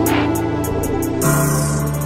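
Instrumental part of an R&B/hip-hop track with no vocals: sustained bass notes and keyboard chords under a run of quick ticks. The bass note changes a little over a second in.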